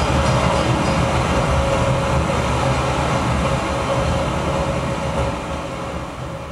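A dense, steady rumbling soundscape from the show's sound design, with a steady hum held over it, which fades down near the end.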